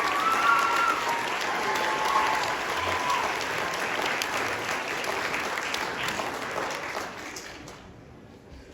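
Audience applauding, with a few voices calling out over the clapping in the first few seconds; the applause dies away near the end.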